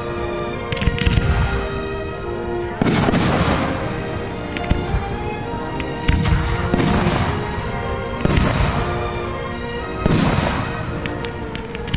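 Aerial firework shells bursting, several booms one to two seconds apart, each trailing off, with crackling near the end. Music plays steadily underneath.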